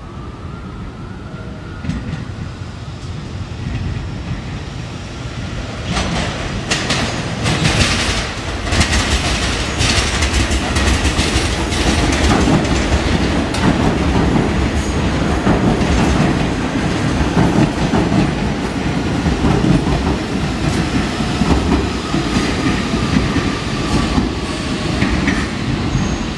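An R46 subway train running past on elevated track. The sound builds about six seconds in with a quick run of clicks as the wheels cross rail joints, then settles into a loud, steady rumble of the cars going by.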